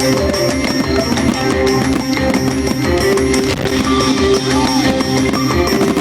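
Rock music with guitar over a steady drum kit beat.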